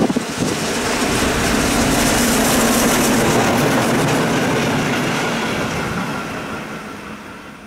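DR class 52 steam locomotive 52 8141-5 with a coach passing through at speed: rumble of the wheels on the rails, building to its loudest about two to three seconds in, then fading as the train moves away.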